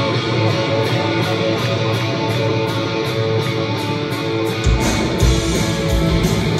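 Live rock band playing a song's opening: electric guitars strum chords. About five seconds in, the bass and drums come in hard.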